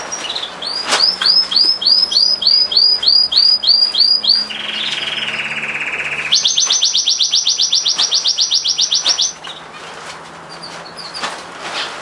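Domestic canary singing: a run of repeated rising notes about three a second, then a fast lower trill, then a rapid high trill. The song breaks off about three-quarters of the way in, leaving a few faint chirps.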